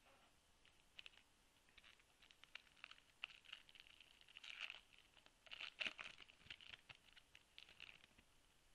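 A 2013 Topps Prime football card pack being torn open, its wrapper crinkling in a faint run of small crackles, with louder tearing about four and a half and six seconds in.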